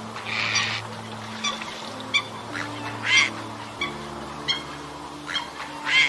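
Eurasian coots giving short, sharp honking calls, a string of them about one every half second to second, the loudest about three seconds in, with a harsh noisy burst under a second in. Soft background music with long held notes plays underneath.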